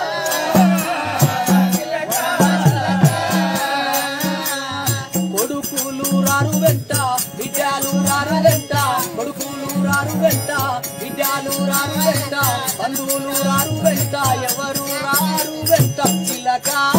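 Live folk music: a harmonium melody over repeated low drum beats and rapid jingling rattle percussion.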